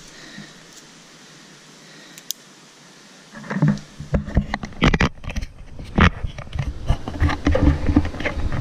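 Low hiss with one sharp click, then, from about three and a half seconds in, loud irregular rubbing and knocking as a hand grabs and moves the GoPro action camera: handling noise on its microphone.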